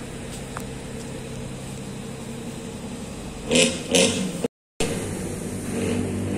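An engine idling with a steady, even hum. About three and a half seconds in, two short loud bursts of sound cut through it, followed by a brief dropout.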